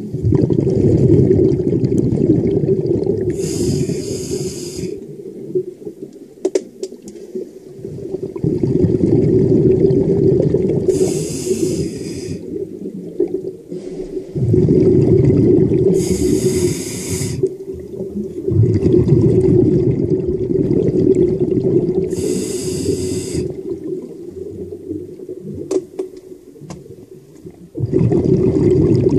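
A diver's breathing heard underwater: a short hiss of breath about every six seconds, four times, over a loud low rush of water and bubbles that swells and fades.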